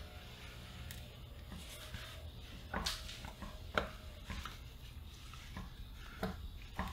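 A few faint clicks and light taps as fingertips press a small replacement speaker into a 3D-printed plastic adapter ring, over a steady low hum. The sharpest clicks come about three and four seconds in.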